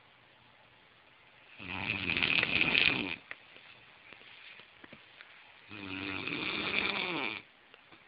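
A person snoring loudly with a cow-like mooing drone. Two long snores come about four seconds apart, each lasting about a second and a half, with quiet breathing between them.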